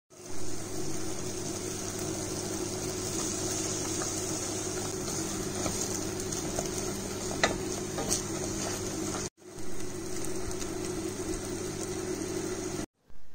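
Thick semolina halwa cooking and sizzling in a steel pot while a plastic slotted spatula stirs and scrapes it, with a few sharp clicks of the spatula against the pot past the middle, over a steady low hum. The sound cuts out briefly twice near the end.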